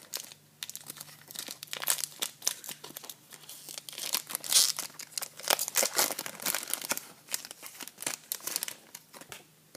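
A trading-card pack wrapper being torn open and crinkled by hand: dense, irregular crackling that goes on for most of nine seconds and stops shortly before the end.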